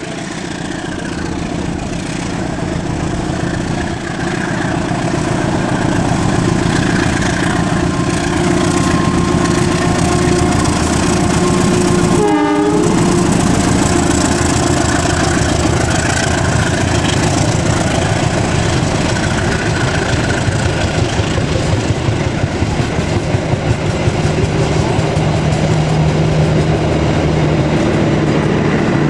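Diesel locomotive hauling a passenger train past at close range: its engine and the wheels on the rails build up over the first few seconds, then a steady heavy rumble as the coaches roll by, with wheels clattering over the rail joints.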